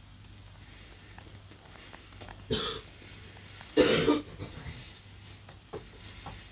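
A woman coughing twice while eating, about a second apart, the second cough louder; a few faint mouth clicks follow.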